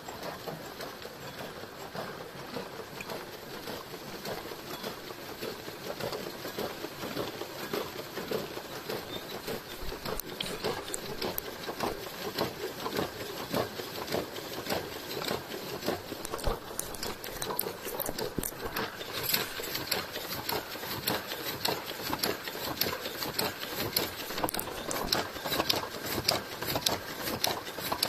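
GSF 1100 folder gluer running, its belts, rollers and folding guides carrying carton blanks through with a dense, rapid mechanical clatter of clicks. The clatter gets louder and sharper about two-thirds of the way through.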